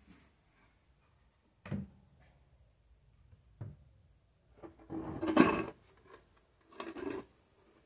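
Wooden boards being handled and fitted together: two single knocks, then a longer scraping clatter about five seconds in, the loudest part, and a shorter one near the end.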